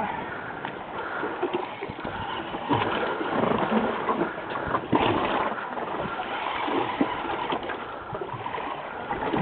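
Water splashing and slapping against the hull of a small fishing boat, an uneven rushing noise with scattered small knocks.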